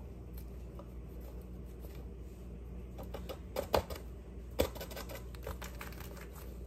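Flour being poured from a paper bag into a glass measuring cup, the bag rustling, with scattered light taps and clicks and two sharper clicks around the middle. A low steady hum runs underneath.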